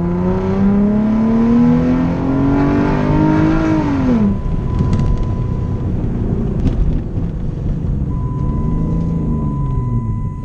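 Chrysler 300's 3.5-litre V6 accelerating hard, heard from inside the car: the engine note climbs steadily for about four seconds, then drops, and rises and falls again more gently near the end. It pulls without hesitation, its cylinder 4 misfire cured by a new fuel injector. A thin steady high tone sounds alongside for a few seconds.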